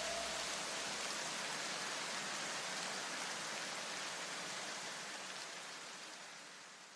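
Steady hiss-like noise washing out at the tail of the electronic background music, fading out near the end.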